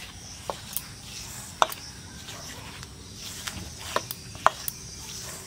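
A hand rubbing and squeezing whole wheat flour in a stainless steel bowl, a soft rustle with a few sharp clicks against the bowl.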